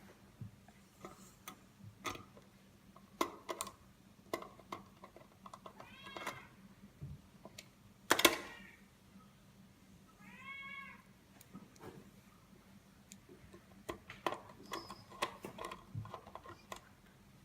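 Domestic cat meowing twice, a few seconds apart, the meows of a cat that is always hungry. Underneath are scattered small clicks and taps from screws being driven back into a plastic display housing, with one sharp knock about eight seconds in.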